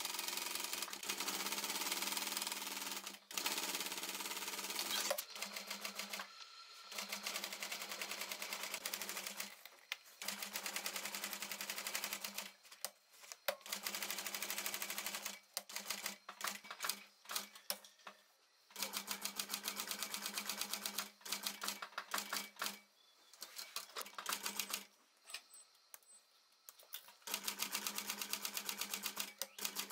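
Industrial sewing machine stitching through canvas and leather bag parts: rapid, even needle clatter over a steady motor hum. It runs in spurts of a few seconds, stopping and starting again, with shorter bursts toward the middle.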